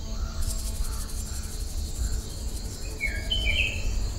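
Field ambience: insects keep up a fast, high, pulsing trill from about half a second in, and a bird gives a few short chirps about three seconds in, over a steady low rumble.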